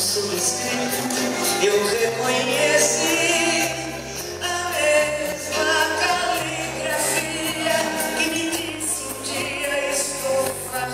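A song: a singing voice holds long notes with a wavering vibrato over backing music with sustained bass notes.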